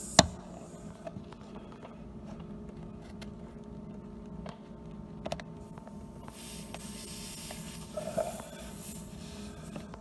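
Steel pliers biting and tugging at a screw lodged in a truck tyre's tread: a sharp metal click just after the start, then faint scraping and a few small clicks. A steady low hum runs underneath, and a soft hiss comes in from about six seconds on.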